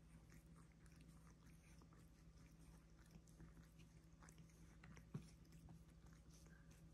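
Faint licking of two cats grooming each other's fur close up: a scatter of small wet clicks from their tongues and mouths, with one sharper tick about five seconds in.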